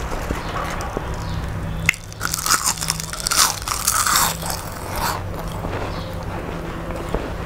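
Close-miked crunching and crackling of crispy fried pumpkin leaves being bitten and chewed, in a burst of about three seconds starting a couple of seconds in.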